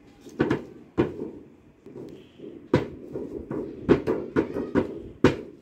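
Small children's toy drum slapped by hand on its printed drumhead: about ten uneven strikes, some in quick runs.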